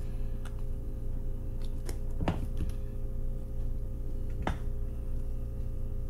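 Steady low hum of background room noise with a few short, light clicks and taps as small objects are handled on a workbench. The clearest clicks come about two seconds in and again about four and a half seconds in.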